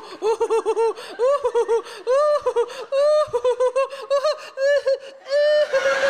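A woman's high-pitched wordless vocalising: a long run of quick squeals that rise and fall in pitch, several a second, a few held a little longer, like an exaggerated cackling laugh.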